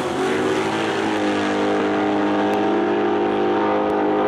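Two drag-racing cars at full throttle running down the quarter mile, a steady high engine drone. The pitch drops and climbs again right at the start, like a gear change, then holds.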